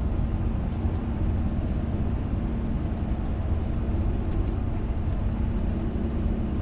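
Steady engine and road noise inside a moving vehicle's cabin: an even low rumble with a fainter hiss of tyres and air over it.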